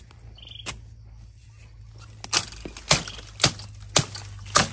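Machete chopping into bamboo: one sharp strike, then about two strikes a second from a little past two seconds in.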